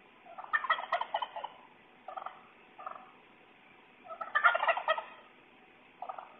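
Wild turkey tom gobbling: two loud gobbles, each a rapid rattling run of notes about a second long, with three shorter single calls in between and near the end.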